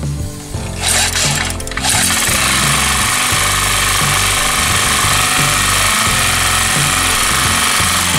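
Yamamoto four-stroke portable generator engine, recoil-started on choke about a second in, catches and then runs steadily. It is running on its original carburettor, which has a bent air-adjustment needle yet still lets it run normally.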